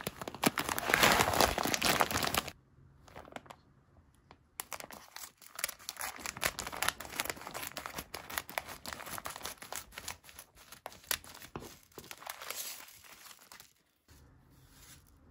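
Rice bag of plastic and paper crinkling loudly as it is handled for the first couple of seconds; then, after a short pause, scissors cut along the bag, a long run of snips and crackling plastic that stops shortly before the end.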